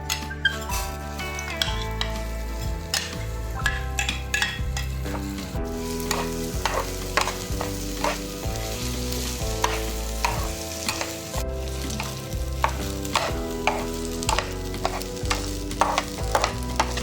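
Food frying and sizzling in a pan while a utensil stirs it, with frequent sharp clicks of the utensil against the pan, over background music.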